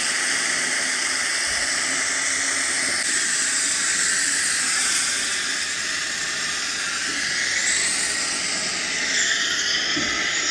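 Water hissing steadily out of a 3D-printed hose-end garden sprayer running on a garden hose.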